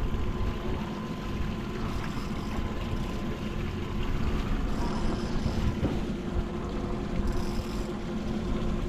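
Twin outboard motors idling steadily in neutral, with a constant hum over wind and water noise.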